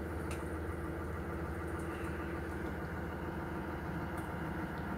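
Engine idling steadily with a low, even hum, with a couple of faint light clicks, one near the start and one near the end.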